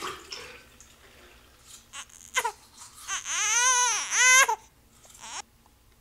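Infant crying: a short cry about two and a half seconds in, then two long wails, each rising and falling in pitch, with a brief sound near the end.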